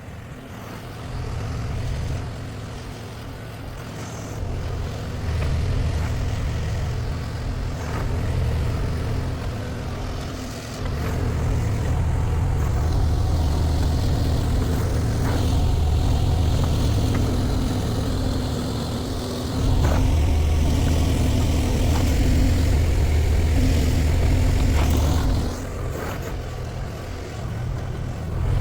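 Mini excavator's diesel engine running and working harder under hydraulic load, its note rising about ten seconds in and easing off near the end, with a few sharp knocks.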